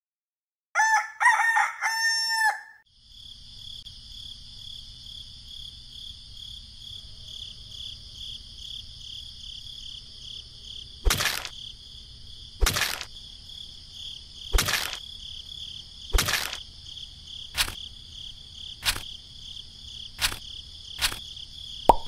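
A rooster crows once near the start. Then a steady, pulsing insect drone over a low hum sets in, and from about halfway sharp knocks sound roughly every second and a half, coming a little faster toward the end.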